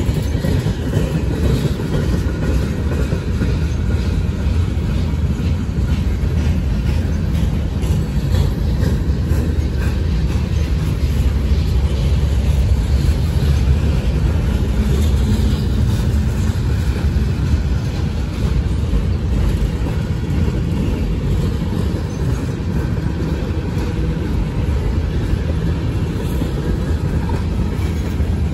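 Freight cars of a long manifest train rolling past close by: a steady, loud low rumble of steel wheels on rail, with faint clicks running through it.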